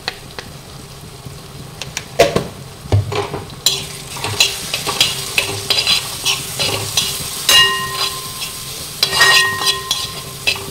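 A spoon stirring and scraping masala around a hot metal uruli as the spice powders are sautéed in oil with onion and tomato: repeated clinks and scrapes against the pan, busier after about two seconds, with a couple of strikes leaving the pan ringing, over a light sizzle.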